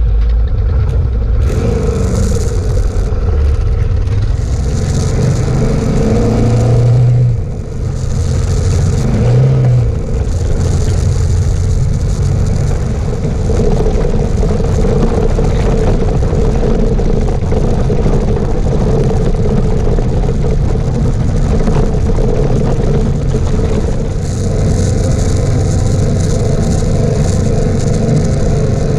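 Suzuki DR650 single-cylinder dual-sport motorcycle engine pulling away and running along a dirt road, with rushing noise over the engine. The engine note shifts and the loudness dips briefly twice in the first ten seconds, then holds steady.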